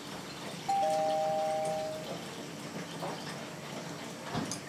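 Electronic two-note chime: a higher note and, a moment later, a slightly lower one, held together for about a second before cutting off. Water runs from a tap underneath, with a light knock near the end.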